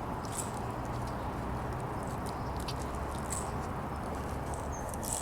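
Shiba inu puppies playing: faint, scattered clicks and scratches over a steady background hiss.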